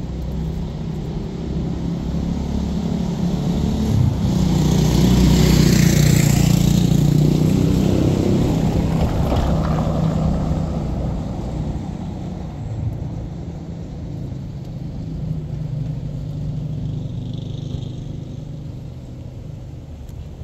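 A motor vehicle's engine and tyres on cobblestones, growing louder to a peak about six seconds in as it passes close, then fading while a low engine hum carries on.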